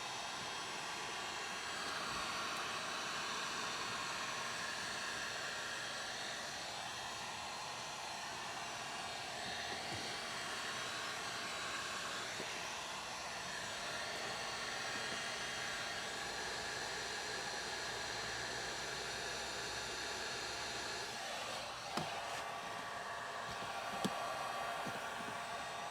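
A small electric blower motor running steadily, with two sharp clicks near the end.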